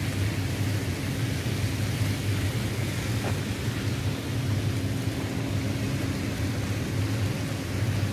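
Steady low hum of ship's machinery running, over a constant rumbling noise.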